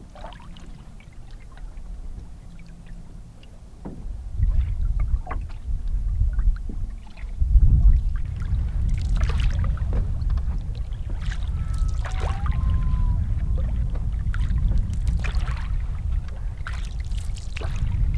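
Canoe being paddled on a lake: repeated paddle strokes dipping and splashing in the water over a steady low rumble.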